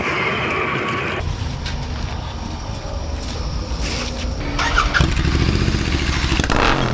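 Motorcycle engine running, its sound changing abruptly about a second in, with a brief squeal near five seconds.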